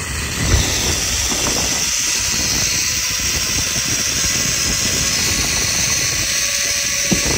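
Steady rush of wind over a phone microphone during a zipline ride, with a couple of faint knocks.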